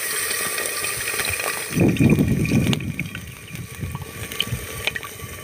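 Tamarind water poured from a small clay pot into a hot clay pot of frying onions and tomatoes, a steady hiss giving way to a loud splash about two seconds in, then quieter bubbling and swirling of the liquid.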